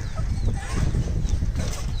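Caged chickens calling with short, high chirps and clucks, over an uneven low rumble close to the microphone.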